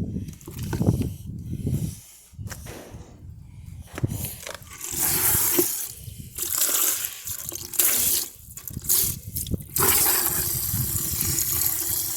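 Water from the dishwasher's supply running and splashing in irregular surges, then pouring steadily from about ten seconds in. It is leaking out of the dismantled machine. A low rumble comes before the water in the first two seconds.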